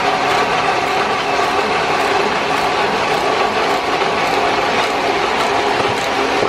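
One-colour sheet-fed offset press of the 810 type running steadily at printing speed, a continuous dense mechanical clatter with faint repeating ticks.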